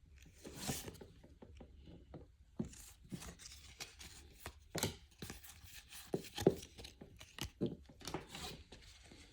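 Baseball trading cards being handled at a table: flipped through, slid and set down, giving a run of irregular light clicks, taps and rustles, with the sharpest snaps about five and six and a half seconds in.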